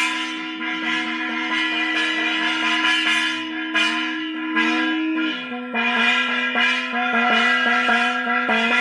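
Ritual bells and gong-like metal struck again and again during an aarti, ringing over a held, horn-like tone. The held tone drops lower about five seconds in and comes back near the end.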